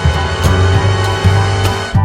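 Upbeat instrumental background music with a steady bass and drum beat.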